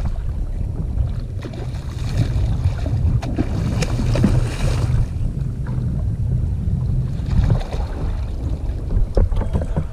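Wind buffeting the microphone, with a hooked king mackerel thrashing and splashing at the surface beside the kayak, most strongly from about two to five seconds in, and a few sharper splashes near the end.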